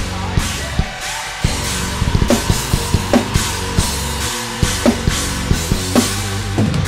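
Raw, unedited heavy metal drum recording played back from the multitrack: kick, snare, toms and cymbals, not yet tightened to the grid, with sustained guitar and bass underneath.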